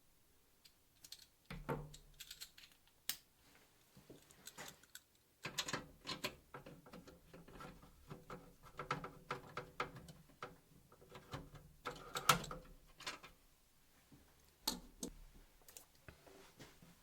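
Hands working on hardware inside a desktop PC case, trying to free the graphics card: irregular clicks, taps and rattles, with a denser stretch of clattering in the middle and a few sharper clicks.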